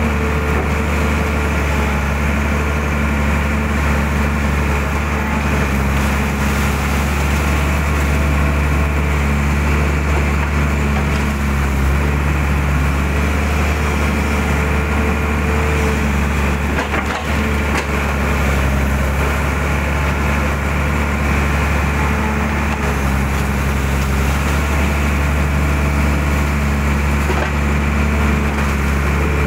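Mitsubishi hydraulic excavator's diesel engine running steadily under hydraulic load while the boom and bucket dig mud from a ditch, heard from the operator's cab. The engine note shifts slightly now and then as the load changes.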